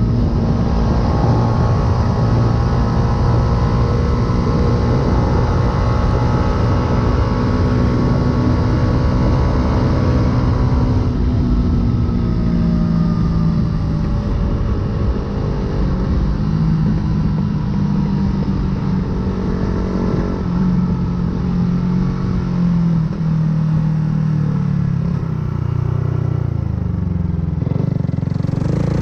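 Yamaha YZF-R125's single-cylinder four-stroke engine with an aftermarket full exhaust, running under a riding load: a steady engine note for about ten seconds, then lower and varying in pitch as the throttle changes, falling near the end. Wind rush runs under the engine sound.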